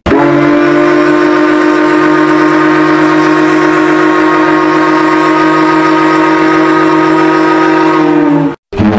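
Ship's whistle sounding one long steady blast of about eight and a half seconds, dropping slightly in pitch just before it stops.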